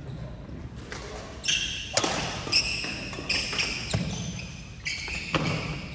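Badminton rally: several sharp racket strikes on the shuttlecock from about two seconds in, mixed with high squeaks of court shoes on the wooden floor, in a large sports hall.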